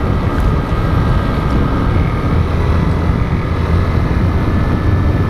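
Honda CG 150 motorcycle's single-cylinder four-stroke engine running steadily while being ridden, with road noise.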